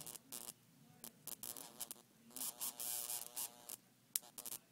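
High-voltage spark arcing from a flyback transformer driven by a 100-watt CFL ballast, crackling and hissing in short irregular bursts, with a few sharp snaps near the end.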